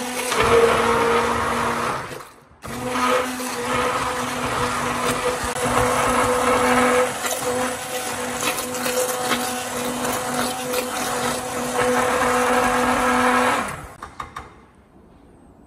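Handheld Philips immersion blender running in a bowl, pureeing mango with yogurt: a steady motor whine with the blade churning the mix. It stops for a moment about two seconds in, starts again, and switches off shortly before the end.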